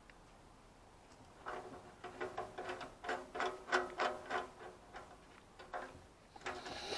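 Socket ratchet clicking in short runs of ticks as it is worked back and forth to undo the nuts holding a motorcycle fuel tap to the tank. The ticks start about a second and a half in.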